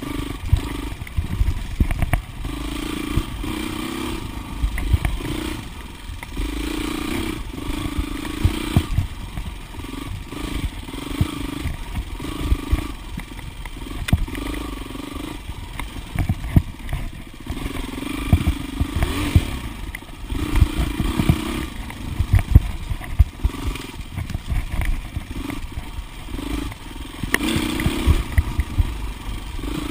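2008 Husqvarna TXC 450's single-cylinder four-stroke engine being ridden hard, the throttle opening and closing every second or so. Knocks and clatter come from the bike bouncing over rough ground.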